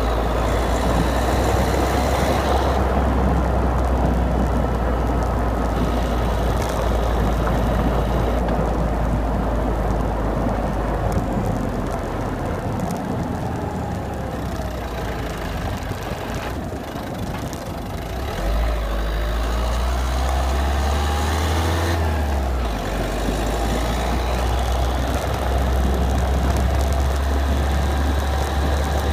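Citroën DS3 110 HDi diesel engine running, a steady low drone with a clicking noise in it. The low drone drops away for a few seconds about halfway through, then comes back.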